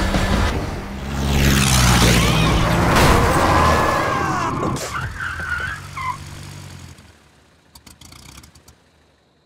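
Car-chase sound effects: engines running and tyres on the road as one car rams another, with a loud rush swelling through the first few seconds and wavering high tones in it. It dies away about seven seconds in, leaving a few faint ticks.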